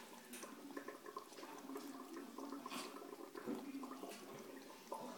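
A domestic cat lapping water from a toilet bowl: a run of faint quick wet laps and drips, with a couple of sharper little splashes.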